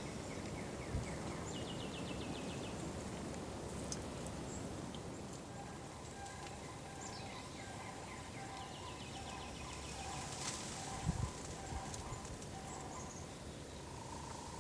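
Wild turkeys calling softly with a run of short repeated notes, while songbirds give two fast descending trills. A few low thumps come near the end.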